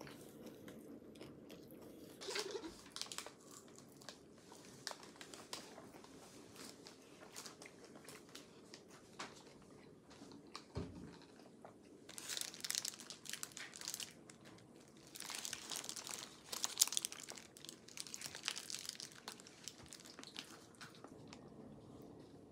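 Paper wrapper of a McDonald's sausage muffin crinkling as it is handled and opened. The crinkling comes in bursts about two seconds in and again from about twelve to nineteen seconds, with small clicks and handling noises between.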